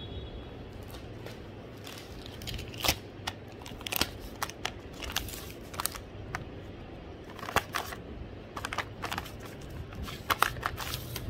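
Soft plastic wet-wipes packet crinkling and crackling as wipes are pulled out of it, in irregular clusters of sharp clicks, over a steady low hum.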